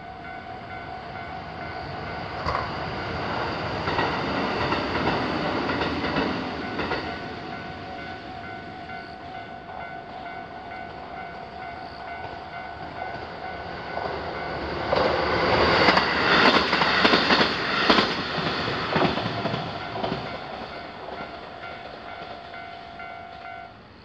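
Japanese railroad-crossing warning bell ringing steadily while a train runs past, then a second, louder train passes with its wheels clacking over the rail joints. The bell stops shortly before the end.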